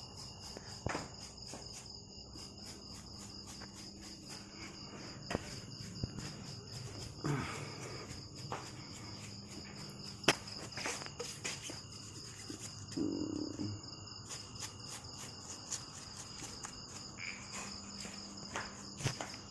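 Crickets chirping in a steady high trill, with scattered light clicks and knocks, the sharpest about ten seconds in.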